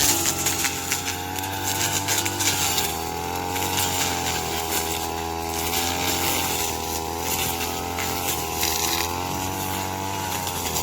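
Small petrol engine of a Yamaha corn-stalk cutting machine running steadily, its pitch dipping slightly a few times, with a rough crackle over it as the stalks are cut.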